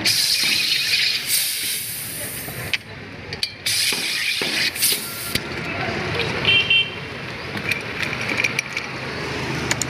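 Carbon dioxide hissing from a gas cylinder's carbonating valve as a glass bottle of water is charged into soda, in two long bursts that each cut off sharply, the second ending about halfway through. Then the carbonated soda is poured from the bottle into a glass.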